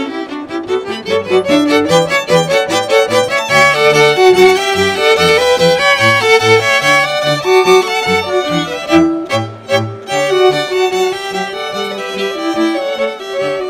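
String quartet of two violins, viola and cello playing a classical piece: quick, short bowed notes in the upper strings over separate low cello notes, with a brief drop in loudness about nine and a half seconds in.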